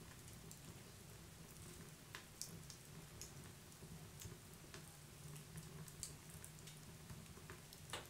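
Wood fire crackling quietly, with irregular sharp snaps and pops over a faint steady background.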